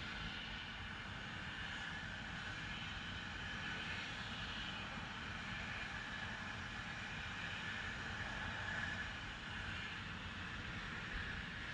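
Steady industrial hissing from a factory, heard from a distance, with a low rumble beneath it that does not change.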